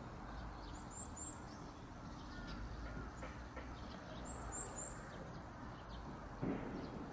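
Wild birds calling faintly outdoors: scattered short chirps, with quick high pairs and triplets about a second in and again around four and a half seconds. A brief, slightly louder sound comes about six and a half seconds in.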